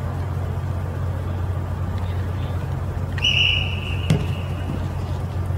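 A referee's whistle blown once as a single steady blast about three seconds in, then fading, followed a moment later by a sharp knock, the football being kicked. A steady low hum runs underneath.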